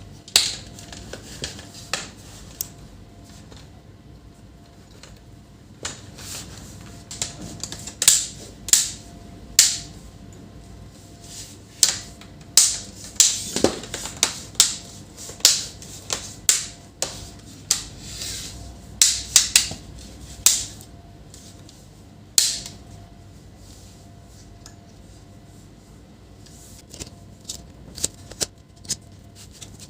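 Sharp plastic clicks and snaps as a laptop's casing and hinge parts are handled and fitted back together during reassembly, coming in irregular clusters that are busiest in the middle.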